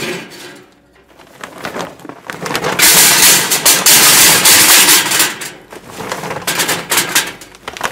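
Charcoal briquettes poured from a bag into a steel charcoal basket in the grill. There are a few clinks and rattles first, then a loud rattling rush of briquettes from about three seconds in that lasts some two and a half seconds, and then single briquettes knocking into the basket near the end.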